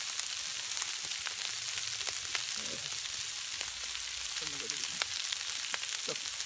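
Chopped pork and sweet peppers frying on a flat-top griddle: a steady sizzling hiss dotted with frequent small crackles and pops.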